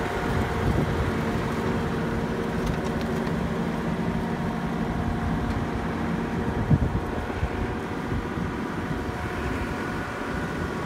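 Kioti tractor's diesel engine running steadily as it pulls a loaded log trailer past, its note growing fainter over the second half as it moves away.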